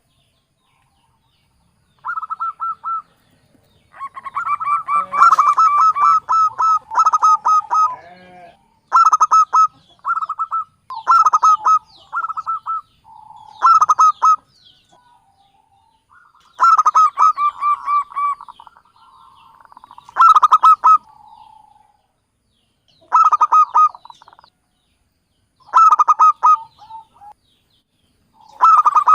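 Zebra dove (Javanese local perkutut) cooing: repeated short phrases of quick pulsed notes, one phrase every couple of seconds with short pauses between. This is the perkutut call used as a lure to draw in wild doves.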